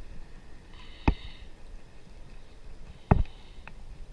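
Two sharp thumps about two seconds apart, over a low rumbling background.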